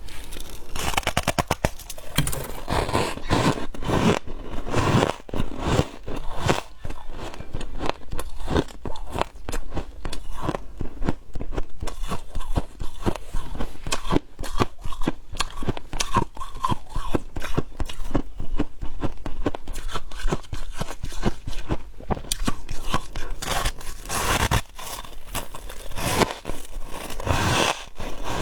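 Close-miked crunching and chewing of frost chunks, a dense, continuous run of sharp crackles with louder bites now and then.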